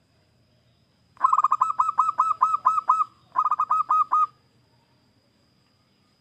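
Zebra dove (perkutut) singing: a phrase of rapid, hooked cooing notes lasting about two seconds, then a short pause and a second, shorter phrase.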